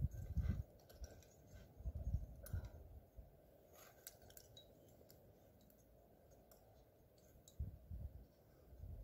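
Faint scattered clicks and scratches, with three short low thuds: one near the start, one about two seconds in, and one near the end.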